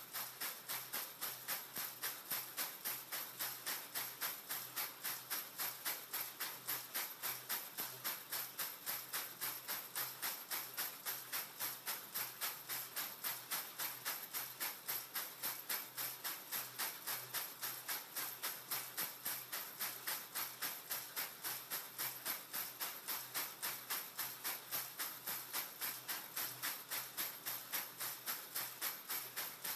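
Torchon lace braiding machine running, its bobbin carriers jingling and clattering in a steady rhythm of about three beats a second.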